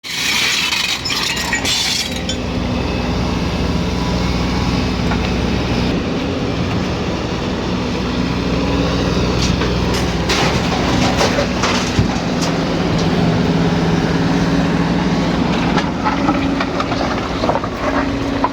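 Heavy diesel excavator engine running steadily under working load, with scattered sharp metallic clanks and knocks, clustered about ten to twelve seconds in and again near the end. A hissing noise sits over the engine for the first two seconds.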